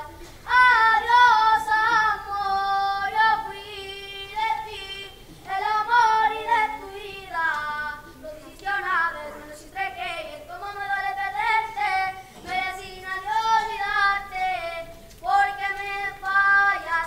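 A boy singing solo and unaccompanied, in phrases of a few seconds with short breaks between them.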